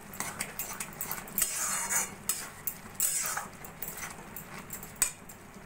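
A wooden spatula stirring thick, wet lentil dal in a metal kadai, with repeated scrapes and knocks against the pan's sides and bottom.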